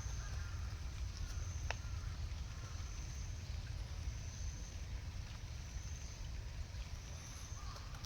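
Outdoor ambience: a steady low rumble with a faint high hiss and a thin steady high tone, broken by one sharp click a little under two seconds in.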